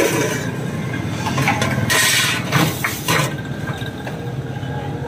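Aluminium cooking pots and their lids being handled: short metal scrapes and clanks, the loudest about two seconds in, over a steady background of street traffic.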